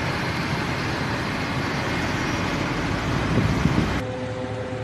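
Heavy machinery engine running with a loud, dense rumble. About four seconds in it cuts to a quieter, steadier engine tone that begins to fade.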